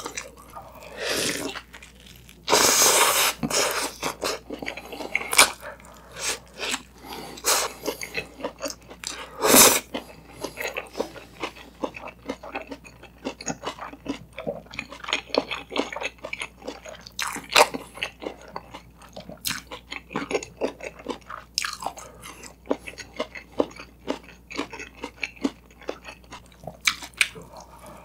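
Close-miked chewing of a toasted bread sandwich with egg and shredded cabbage filling: a steady run of small crunches and mouth clicks. Louder crunching comes about three seconds in and again near ten seconds.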